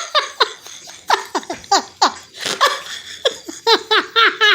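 A woman laughing helplessly at her own hiccups: short bursts that fall in pitch, a few to a second, then a quick run of laughs near the end.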